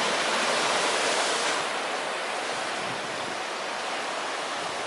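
Sea surf washing over a boulder shore: a steady, even rush of breaking water, a little louder in the first second and a half.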